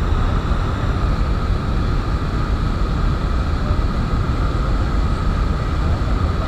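Whitewater river rapids rushing: a loud, steady noise of churning water with a deep rumble.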